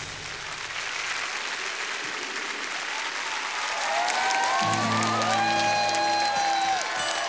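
Studio audience applauding, joined partway through by a new music track: gliding lead lines come in around three seconds, and a steady bass line enters a little before five seconds.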